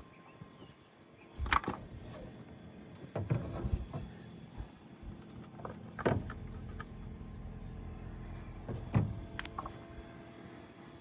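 Sharp knocks and clunks from handling and pushing together glued PVC pipe and fittings, four loud ones a few seconds apart with lighter clicks between them, over a steady low hum.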